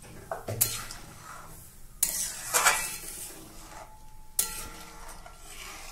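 A metal spoon stirring thick simmering moong dal in a metal kadai, scraping against the pan. There is a louder stretch of scraping a couple of seconds in and a sharp clink of spoon on pan past the middle.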